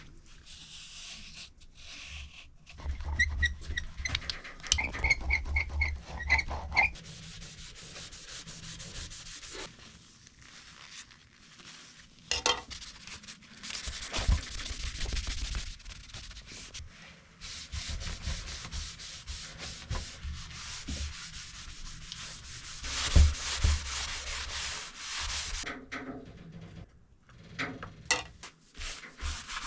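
Hand-work rubbing and scraping in uneven strokes, with a few sharp knocks and thumps between them.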